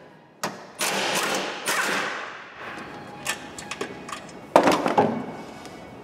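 Cordless impact wrench hammering in two bursts of about a second each as it works a nut loose; the nut is not seized and comes off easily. A couple of loud metal clunks follow near the end.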